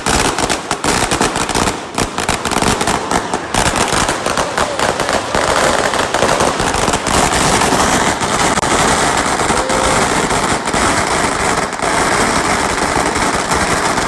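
Firecrackers going off in a long, loud run: rapid separate bangs for the first few seconds, then merging into a dense, continuous crackle.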